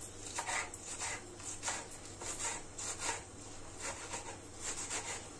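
Freshly washed salad greens crunching and rustling on a cutting board as they are worked by hand, in short irregular scratchy strokes.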